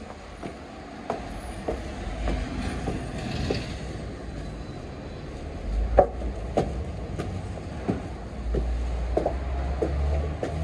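Footsteps climbing a construction-site staircase: irregular knocks and thuds about once a second over a low rumble that comes and goes.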